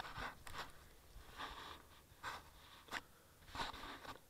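Rustling and scraping handling noise with a few sharp clicks, picked up by the small camera mounted on the RC glider while the glider is carried. The noise comes in short, uneven bursts.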